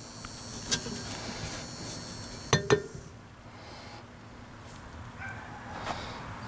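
Metal oil filter cartridge being pulled out of its metal canister: a light scraping slide and three sharp metallic clinks, the last two close together about two and a half seconds in.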